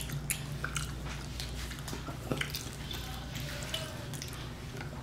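Wet chewing and mouth clicks from eating pizza dipped in ranch: a scatter of short, soft smacks over a faint steady low hum.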